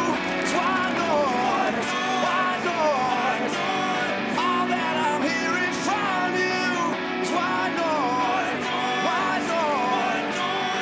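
Live rock music: electric guitar playing the song's opening riff with bent, wavering notes, with little bass underneath. Heavy drum hits come in just after.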